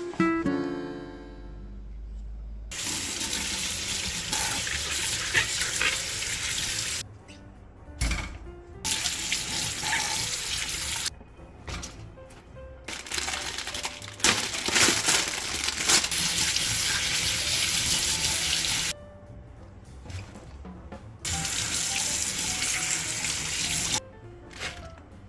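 Kitchen tap running into a sink in four separate stretches of a few seconds each, stopping in between. A plucked guitar chord fades out at the very start.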